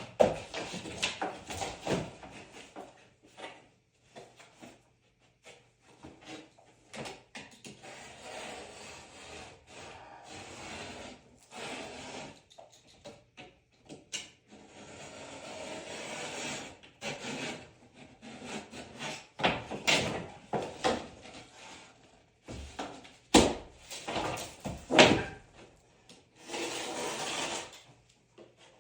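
Hands-on work on wood: irregular stretches of rubbing and scraping, broken by scattered sharp knocks, the loudest a few seconds after the middle.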